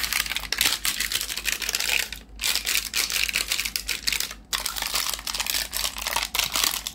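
Crinkling and crackling of plastic packaging being handled, in three bursts of dense rapid clicks with short breaks between them.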